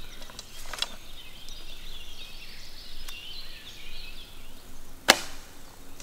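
A bow being shot: the bowstring is released with a single sharp snap about five seconds in, the loudest sound. A fainter click comes about a second in.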